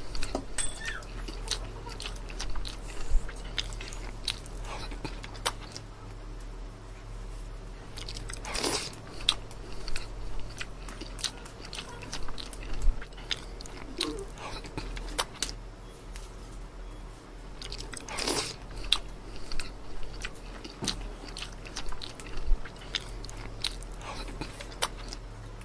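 Close-up eating sounds: biting into and chewing a crisp fried bread chop, with crunches and small wet mouth clicks scattered throughout, loudest about nine and eighteen seconds in.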